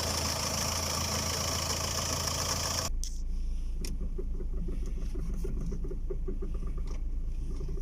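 Skoda Octavia's engine idling while the steering is turned. About three seconds in, the sound changes abruptly and a run of quick, regular knocks sets in: the noise on turning the steering, which the owner traces to a worn bearing.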